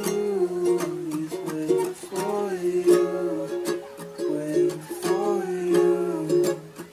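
Background music with plucked strings and a melody line.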